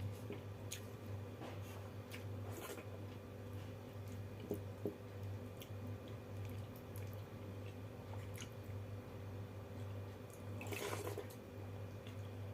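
Eating sounds from a meal of watery rice: soft wet squishing and chewing with scattered small clicks, over a steady low hum. A brief louder rustle comes about eleven seconds in.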